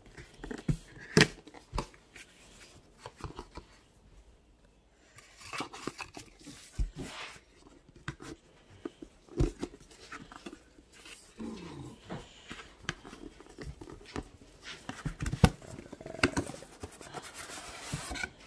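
A cardboard tablet box being opened and handled by hand: irregular scraping, sliding and tapping of cardboard, with scattered sharp clicks.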